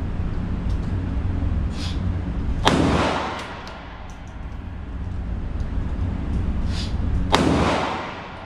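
Two pistol shots about four and a half seconds apart, each echoing through an indoor range, over a steady low rumble.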